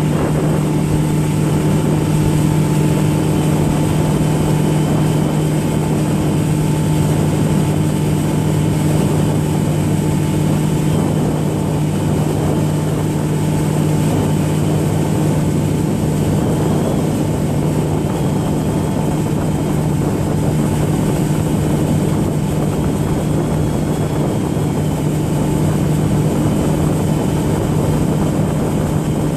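A motorboat's engine running steadily at cruising speed, an even hum with a rushing hiss over it.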